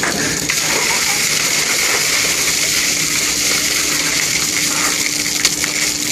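Ice water pouring from a bucket, gushing over a seated man and splashing onto the wet deck. Underneath runs a steady background hiss with a faint low hum.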